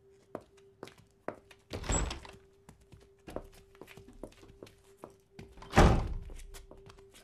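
Footsteps on a workshop floor, with two heavy thuds, one about two seconds in and a louder one near the six-second mark. A faint steady hum runs underneath.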